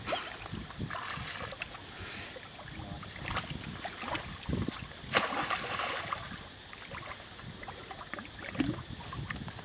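Water splashing and sloshing as a troop of macaques swims and plays in a pool, with many irregular small splashes and a louder one about five seconds in.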